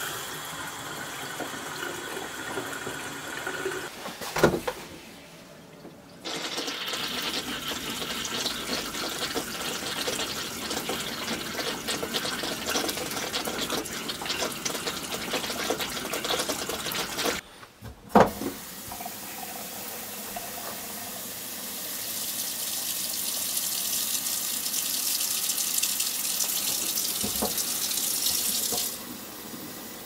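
Water running from the faucets and the toilet of a freshly de-winterized camper, in several stretches broken by short gaps. There is a sharp knock about four seconds in and another near eighteen seconds, and a brighter hiss of a faucet running into a steel sink that stops shortly before the end.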